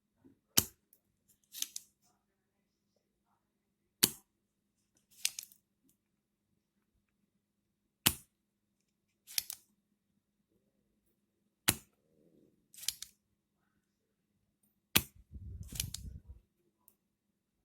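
Spring-loaded solder sucker being fired and re-cocked five times, about every three and a half to four seconds, while clearing solder from a rotary encoder's pins on a circuit board. Each cycle is a sharp snap followed about a second later by a rougher, noisier click. Near the end there is a low rumble of handling.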